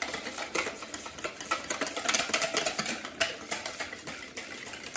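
Eggs and milk being beaten in a bowl, the utensil clicking rapidly against the bowl's sides, busiest around the middle and easing off near the end.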